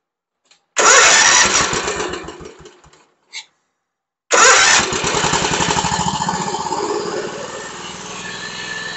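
Kawasaki engine of a Toro TimeCutter zero-turn mower started on the key. It fires about a second in and dies away. A second try a few seconds later catches, and it keeps running and settles to a steadier, slightly lower speed. It is running on fresh fuel, which shows the no-start came from bad gas.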